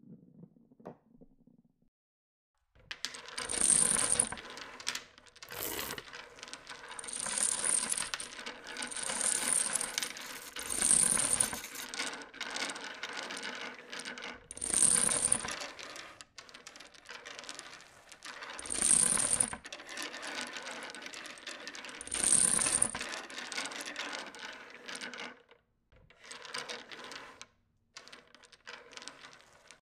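Dominoes toppling in long runs: a dense, rapid clatter of clicks that starts about three seconds in, swells and fades several times, and thins to scattered clicks near the end.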